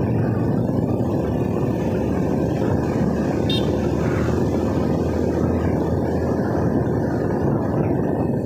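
Motorcycle riding along at road speed, heard from the rider's seat: a steady rush of wind buffeting the microphone over the engine running.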